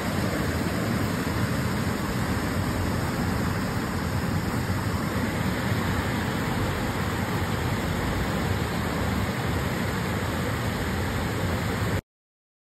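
Steady rush of the Cullasaja River pouring over rocky cascades and small falls, without a break until it cuts off suddenly near the end.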